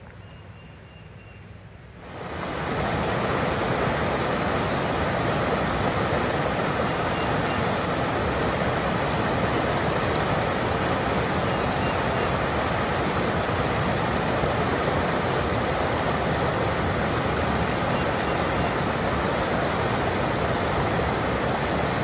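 Quiet woodland ambience, then about two seconds in a steady, loud rush of water: a small waterfall spilling over a wide rock ledge into churning white water.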